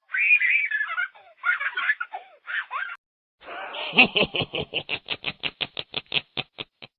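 Two laughing sound effects one after the other: high-pitched giggling for about three seconds, then, after a short gap, a rhythmic laugh of quick, even "ha" pulses, about five a second, that grow shorter and fade near the end.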